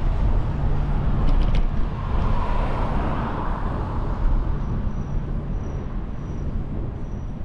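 Wind rumbling on the microphone of a moving bicycle, with road traffic noise; the noise swells about two to four seconds in.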